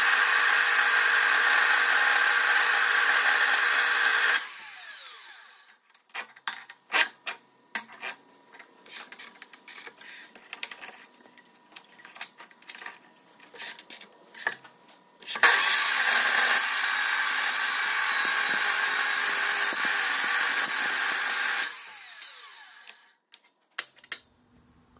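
Metal-cutting chop saw cutting through metal stock twice: a cut of about four seconds at the start and a longer one of about six seconds in the second half, with the blade winding down after each. Between the cuts come scattered clicks and knocks as the vise is loosened and the piece is reset.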